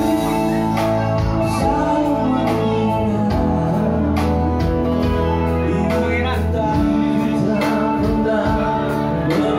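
Live band playing a song through a PA: bass guitar, electric and acoustic guitars, keyboard and drums keep a steady beat under a singing voice.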